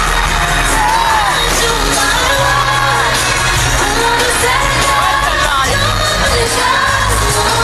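Live pop music over a loud arena PA, recorded from the audience: a female lead vocal sings bending, melismatic lines over a steady, heavy bass and beat.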